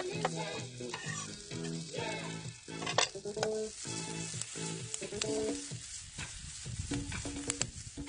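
Chopped food sizzling in a frying pan on a portable gas burner while it is stirred, with a sharp clack of the utensil on the pan about three seconds in. Background music with held notes plays underneath.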